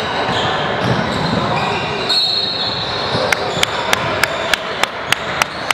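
Basketball dribbled on a hardwood gym floor: eight even bounces, about three a second, starting a little past halfway, over the murmur of voices in the gym. A short shrill squeak comes about two seconds in.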